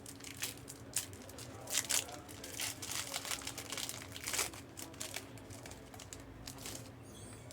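Crinkly foil-and-plastic trading-card pack wrapper being handled and opened, in a quick run of crackles for about five seconds that then eases off, over a faint steady hum.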